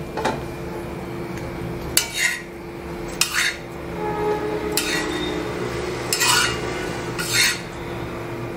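Metal spatula scraping and clinking against a flat tava griddle as toasted bread slices are lifted off it: about six short scrapes spread over several seconds, over a steady background hum.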